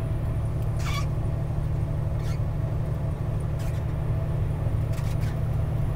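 Steady low rumble of engine and tyre noise inside a truck's cab cruising on a wet, snowy highway, with a few faint clicks about every second and a half.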